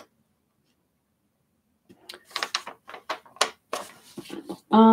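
A sheet of paper rustling and crinkling in the hands as it is lowered and moved about. A single click comes at the very start, then near silence, then about two seconds in a run of irregular crackles that lasts until a voice cuts in at the end.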